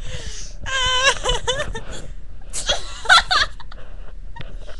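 A girl giggling in two short high-pitched bursts, the second broken by a loud, sharp hiccup about three seconds in; the hiccups come on right after her laughing.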